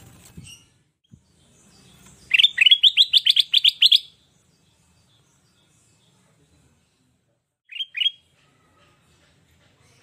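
Kutilang emas (ruby-throated bulbul) calling. About two seconds in it gives a fast run of about a dozen short upward-sweeping notes, roughly seven a second, and near the end two more short notes.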